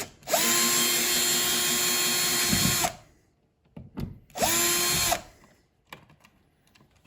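Power drill running in two bursts, a long one of about two and a half seconds and a short one under a second; its motor pitch climbs quickly as it spins up and drops as it stops.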